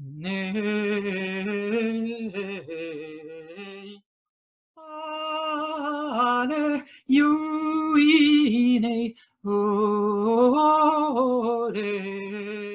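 A woman's wordless, improvised intuitive singing, unaccompanied, in long held notes with a wavering pitch. It comes in four phrases separated by short breaks, climbing higher and loudest in the third phrase.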